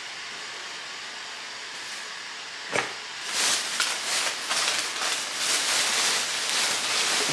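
A thin plastic shopping bag rustling and crinkling irregularly as hands rummage in it and pull out clothing, starting about three seconds in after a single light tap. Before that there is only a steady faint hiss.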